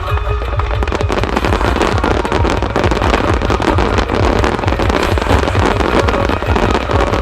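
Fireworks starmine barrage: a dense, unbroken string of rapid bursts and crackling, packed so close it patters like heavy rain, over a steady low rumble of booms.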